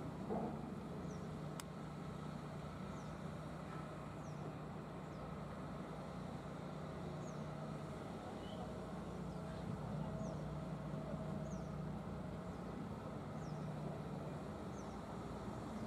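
Hitachi ZX200 hydraulic excavator's diesel engine running steadily as it digs river sediment, with faint short high chirps now and then.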